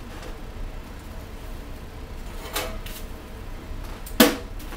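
Steady low hum with a faint knock a little past halfway and a sharp clack about four seconds in: toast being taken out of a toaster oven.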